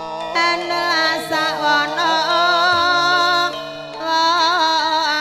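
Javanese gamelan music: a woman sings a long, wavering melodic line over sustained metallophone tones, with a short break in the voice about three and a half seconds in.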